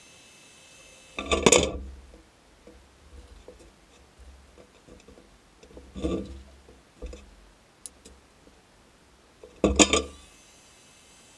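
Handling noise from a guitar neck being gripped and repositioned in a padded bench vise: short clusters of knocks and scrapes about a second in, around six seconds and near the end, with quiet room tone between.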